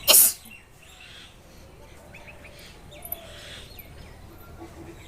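A person sneezes once, sharp and loud, right at the start. Several short bird chirps follow in the background.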